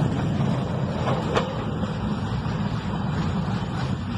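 Freight train wagons rolling past on the rails: a steady low rumble with wheel clicks over the rail joints, one sharper click about a second and a half in, easing slightly as the caboose at the tail moves away.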